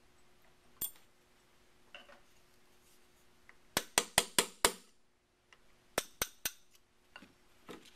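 Hammer tapping a pin punch to drive the trigger pin out of an AK-pattern rifle's steel receiver: five quick, sharp metallic taps a little under four seconds in, then three more about two seconds later.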